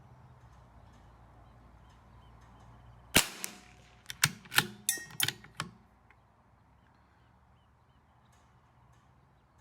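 A single .22 LR shot from a CZ 457 AT-ONE bolt-action rifle, a sharp crack about three seconds in. About a second later there is a quick run of several metallic clacks as the bolt is worked to eject the case and chamber the next round.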